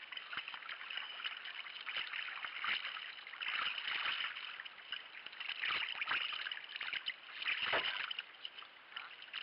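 Sea kayak being paddled: water splashing and trickling off the paddle blades and along the hull, swelling and fading every second or two.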